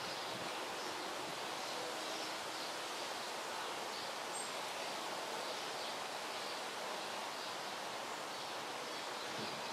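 Steady outdoor background noise, an even hiss with no distinct events, and a faint short high chirp about four seconds in.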